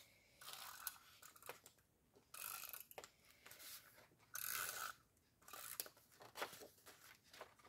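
Adhesive tape runner pulled across card stock in a few short strokes, each about half a second long, with quiet paper handling between them.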